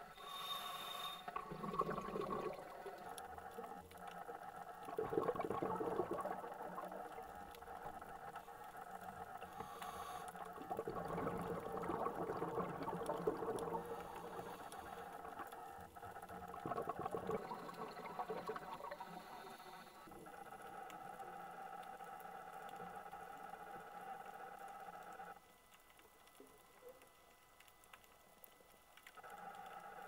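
Underwater ambience: a steady muffled hum of water with several louder gushing, bubbling swells.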